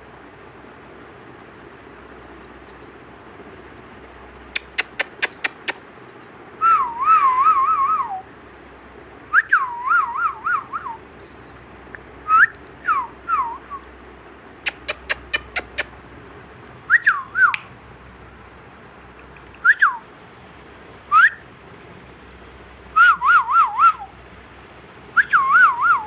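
Indian ringneck parrot whistling short, warbling phrases over and over, the pitch wavering up and down, with two quick runs of sharp clicks between them.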